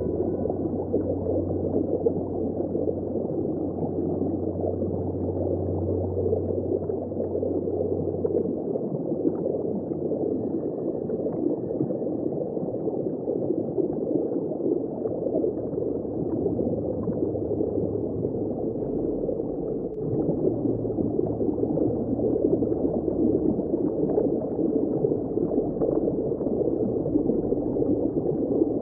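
Underwater ambience: a steady, muffled rush of churning water heard from below the surface, with a low hum that fades about eight seconds in.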